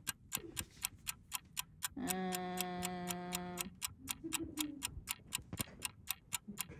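Fast, even clock ticking, about five ticks a second, a timer tick marking thinking time. About two seconds in, a steady humming tone comes in for nearly two seconds, with a shorter one soon after.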